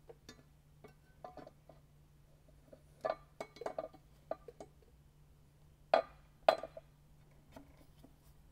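Aluminium transmission adapter plate clinking and knocking against the diesel engine block as it is fitted onto the dowel pins: a cluster of light clinks about three seconds in, then two sharper knocks around six seconds.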